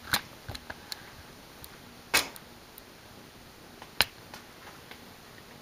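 Banvil Gold Line ceiling fan running on low speed, about 80 to 90 RPM, with a faint hum. A few sharp clicks break in irregularly, the loudest about two seconds in and again about four seconds in.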